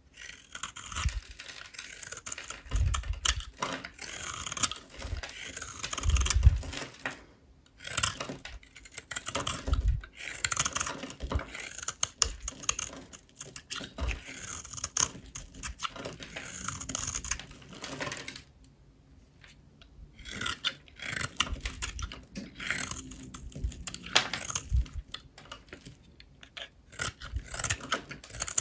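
A blade cutting through dry bars of soap: crisp, crackling scraping strokes in runs, with occasional dull knocks and a few short pauses.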